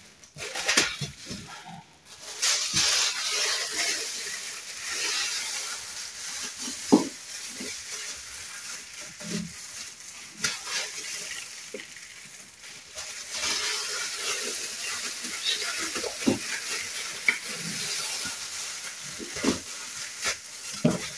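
Thin plastic bag crinkling and rustling as it is stretched over the rim of a plastic bucket, with a few light knocks from the plastic lid being handled.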